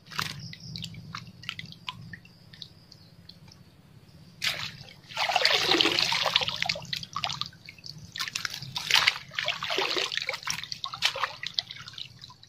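A few light clicks, then water splashing and sloshing in two spells from about four seconds in, around a mesh keep net holding a small freshly caught common carp at the water's edge.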